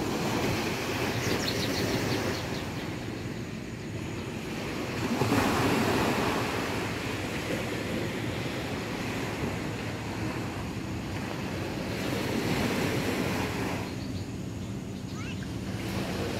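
Surf breaking on a sandy beach: a steady rush of wave noise that swells and ebbs, loudest about five seconds in.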